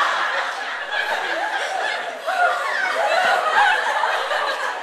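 A group of people laughing and chuckling, with some talk mixed in.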